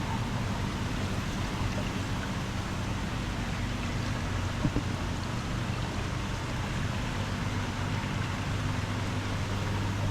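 Steady rush of circulating water with a low pump hum from the coral holding tanks' filtration. A single light knock about halfway through.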